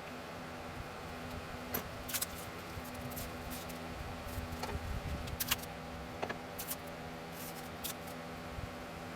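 A steady low hum with a faint fixed tone, with about a dozen light, sharp clicks and taps scattered through it, the loudest about five and a half seconds in.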